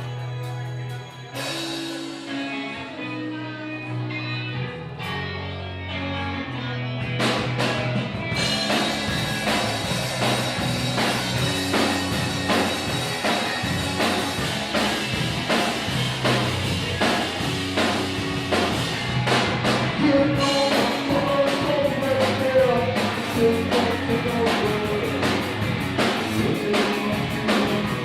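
Rock band playing: a sparse opening of held bass and guitar notes, then the drum kit and full band come in about eight seconds in, with a sung melody from about twenty seconds.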